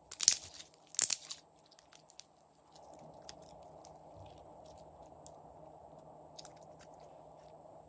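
Pink slime squeezed between the fingers, giving two loud wet crackling squelches in the first second and a half. After that only faint sticky clicks as it is stretched and folded.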